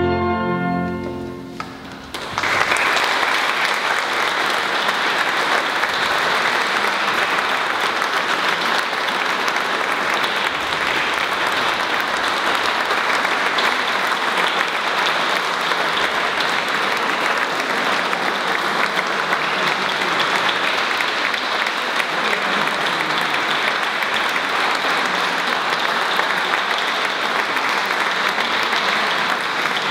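An orchestra's closing chord rings out and fades within the first two seconds, then an audience breaks into steady applause that keeps going.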